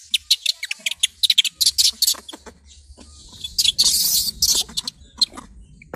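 A macaque, most likely the dangling infant, gives a rapid series of short high-pitched squeals and chirps, then a longer shrill cry about four seconds in.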